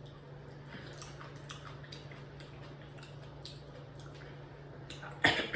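Wet, close-up chewing and mouth clicks of someone eating, over a steady low hum. A single louder sudden noise comes near the end.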